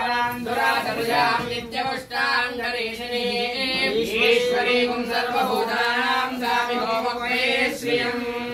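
Several voices chanting Sanskrit mantras together in a sung, melodic recitation, over a steady background tone.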